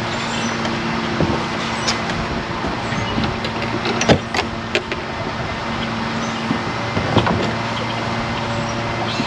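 Boat's outboard motor running steadily under way, with a hum and rushing wind and water noise, and a few sharp knocks scattered through.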